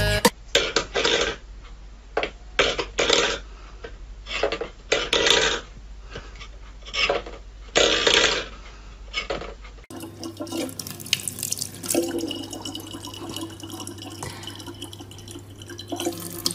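A run of short, irregular scraping and clattering bursts, then a kitchen tap running in a thin, steady stream.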